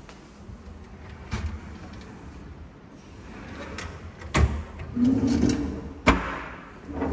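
Pull-out wire pantry baskets sliding on their runners, a rattling glide with sharp clacks as they hit their stops; the two loudest clacks come in the second half.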